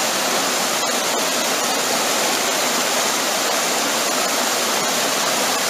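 Fast river water rushing and churning steadily around a truck cab stuck in the current.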